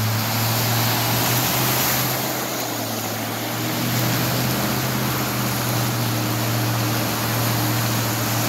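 Steady rushing noise of floodwater with a low, even engine hum underneath.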